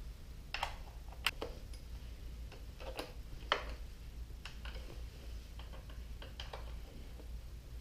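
Irregular light clicks and taps from gloved hands handling parts on a motorcycle, the sharpest about a second in and midway, over a low steady hum.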